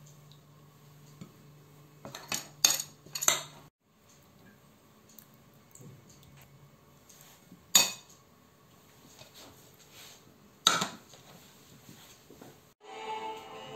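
Metal spoon clinking against china plates: a quick run of sharp clinks a couple of seconds in, then two single clinks later. Music begins near the end.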